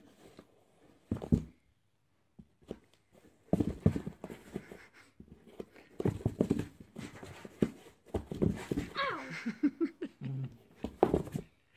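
Irregular thumps and scuffs on a cardboard box as a cat inside swats at a foot poked through the box's hand-hole, with a few short vocal sounds about nine to ten seconds in.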